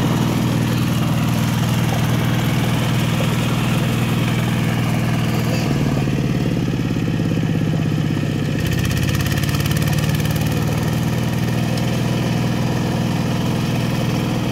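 Kubota K700 power tiller's single-cylinder diesel engine running steadily as it rotavates wet paddy mud. Its note drops about six seconds in and shifts again near nine seconds.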